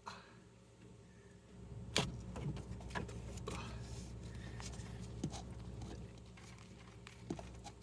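Scattered sharp clicks and knocks, the loudest about two seconds in, over a steady low hum.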